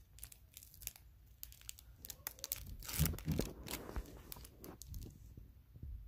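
Foil trading-card pack wrapper crinkling and tearing, with cards being handled; the rustling is densest about three seconds in.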